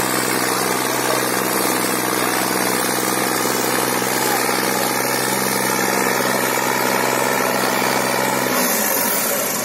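Tractor diesel engine running steadily, an even drone with no change in pitch. It drops away abruptly near the end.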